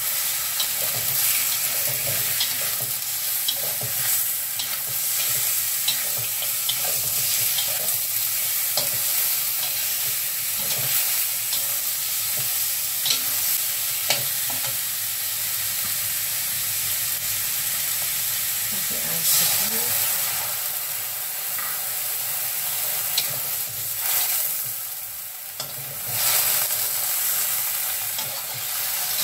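Beef and tempeh sizzling in a stainless steel wok while a metal spatula stirs and scrapes them around the pan, with frequent short clinks of metal on metal. The sizzle drops briefly near the end, then picks up again.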